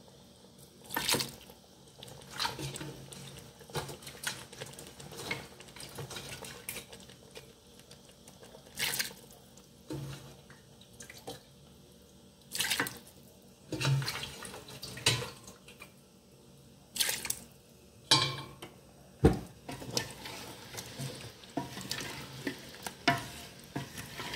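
A spatula scraping and knocking against a pot as chunks of goat meat are stirred through a wet curry, in irregular strokes every second or two over a soft wet churning of the sauce.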